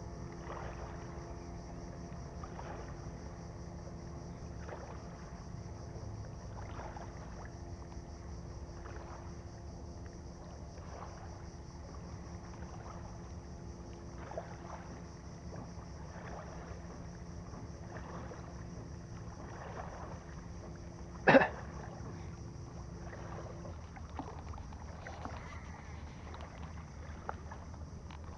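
Small waves lapping at the bank about every two seconds, over a steady low hum that stops a few seconds before the end. Late on there is one sharp knock, the loudest sound.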